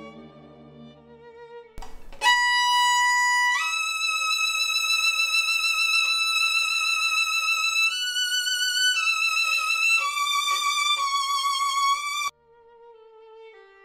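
Solo violin bowed with deliberately excessive pressure and weight, the bow pressed near the bridge. After quieter notes, a hard attack about two seconds in starts a loud, slow phrase of sustained notes with vibrato. It breaks off abruptly near the end, and soft playing follows.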